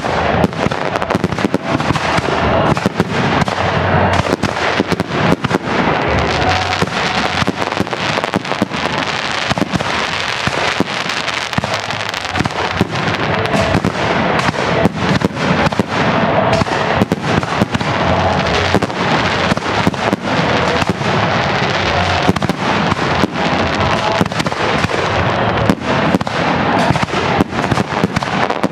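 Fireworks display: a continuous barrage of aerial shell bursts, many sharp bangs a second overlapping with no letup.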